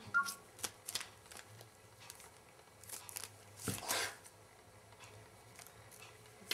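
Foil candy wrapper crinkling as a kitten bats and pounces on it, in short scattered rustles, the longest about four seconds in. A sharp tap comes at the very end.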